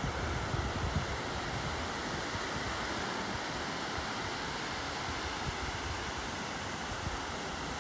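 Ocean surf washing onto a beach, a steady rush of noise, with wind buffeting the microphone in the first second or so.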